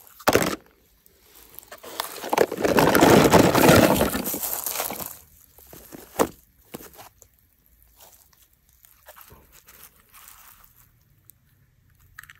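Handling noises from plastic toys and a container: a sharp knock, then a few seconds of loud rustling and clatter, then soft rustles and a single click.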